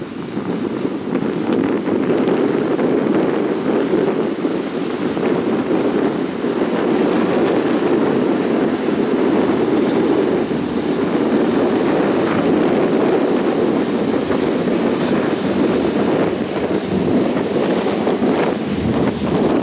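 Phu Quoc Express 18 high-speed passenger ferry running past at speed: a steady rushing of its engines and churning wake, with wind buffeting the microphone.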